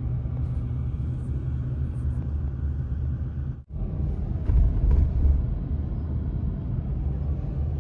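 Road noise of a car being driven: a steady low rumble of engine and tyres. It cuts out for an instant a little before halfway and swells slightly just after.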